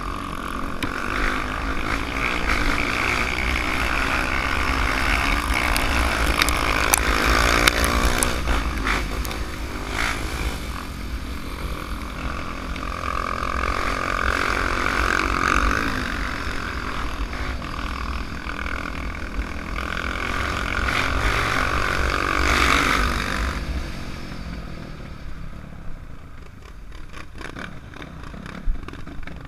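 Dirt bike engine revving up and easing off over and over while riding a rough dirt trail, with wind buffeting a helmet-mounted microphone and scattered knocks and rattles from the bumps. Near the end the engine drops to a lower, quieter run as the bike slows down.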